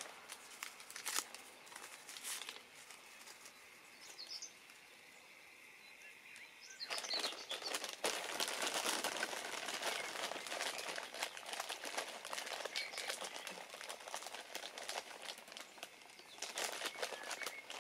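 A plastic bag being handled, rustling and crinkling with many small clicks, loudest from about seven seconds in. A bird chirps briefly about four seconds in.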